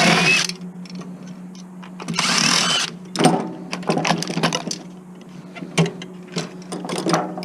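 Metal parts of a table saw scraping and clattering as it is taken apart for scrap: two short harsh scraping bursts, at the start and about two seconds in, then a run of clicks and knocks, over a steady low hum.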